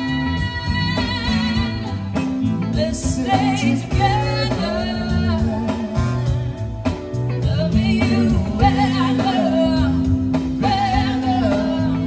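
Live band playing a song: a singer's voice with wavering held notes over keyboard, guitar, bass and drums.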